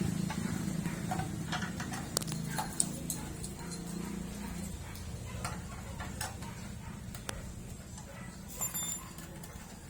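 Scattered metallic clicks and light knocks of hand tools working on a motorcycle's stand. A low steady hum underneath fades out about halfway through.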